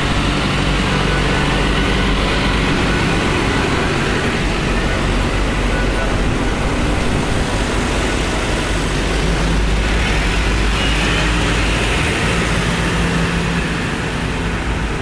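Diesel engines of several large farm tractors running as they drive slowly past in a convoy, a steady low engine note that holds throughout.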